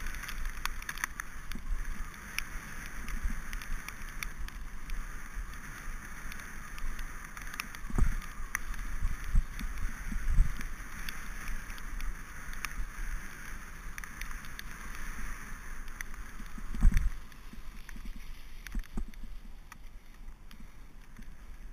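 Mountain bike descending a wet dirt trail: a steady rushing noise of tyres on wet ground, with a few heavy knocks as the bike hits bumps, the loudest about seventeen seconds in.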